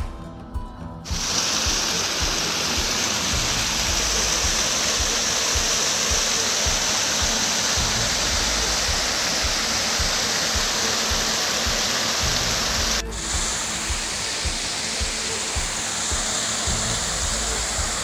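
Rushing water of a small brook cascading down over rocks, a loud steady rush that starts abruptly about a second in and briefly dips near the end.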